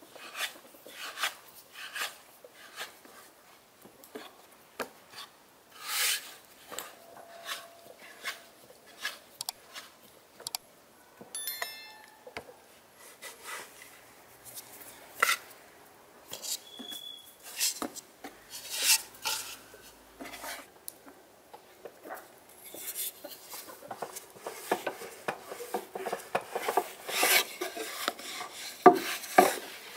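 Hands working soft dough and flour on a wooden board, short scattered rubs and pats. Over the last several seconds a wooden rolling pin rolls dough out on the board, a denser, louder run of rubbing strokes.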